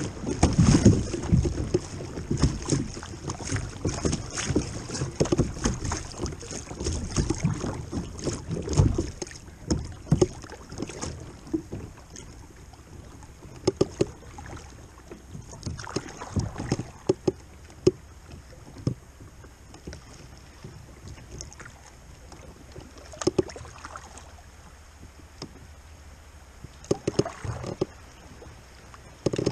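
Water rushing and slapping against a kayak's hull through a choppy riffle, with wind on the microphone, easing about nine seconds in to calmer water with scattered splashes and knocks against the hull.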